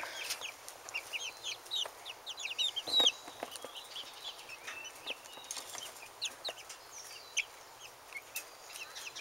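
Hens clucking softly and giving many short, high chirps while they peck around the run. A single sharp knock about three seconds in is the loudest sound.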